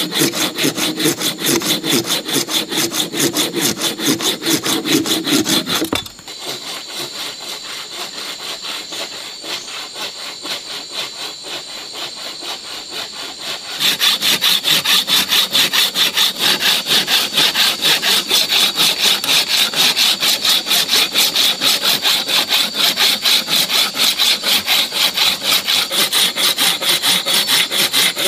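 Hand saw cutting through a log in fast, even back-and-forth strokes. The strokes drop briefly and go quieter about six seconds in, then turn louder again about fourteen seconds in.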